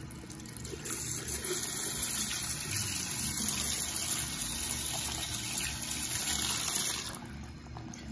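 Sink tap running water onto a pile of makeup sponges, a steady rushing hiss. It comes on about a second in and is shut off about seven seconds in.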